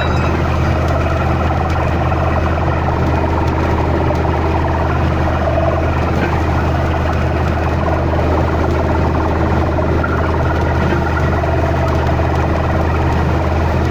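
Heavy stream of water gushing from beneath a truck and splashing onto the ground, over the steady hum of an engine running.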